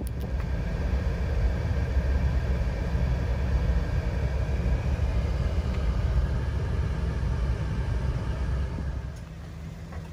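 Road and engine noise inside a moving car's cabin: a steady low rumble with tyre hiss, turning quieter near the end.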